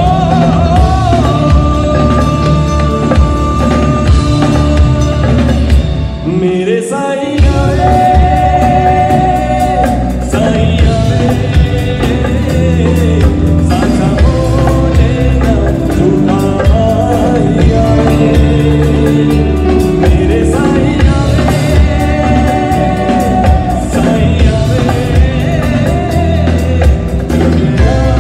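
Live band with drum kit and bass backing a singer in a Hindi song medley, loud. About six seconds in the bass and drums drop out for a moment under a rising glide, then the band comes back in.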